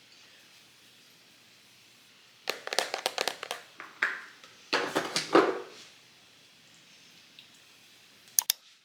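Several bursts of crinkling and crackling, like paper or plastic being handled, over about three seconds from about two and a half seconds in, with quiet room tone before and after. Two sharp clicks come near the end.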